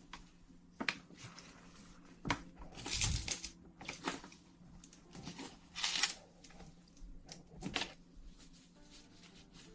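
Close-miked rustling handled in short, irregular bursts, with a few sharp clicks in between; the loudest rustles come about three, six and nearly eight seconds in.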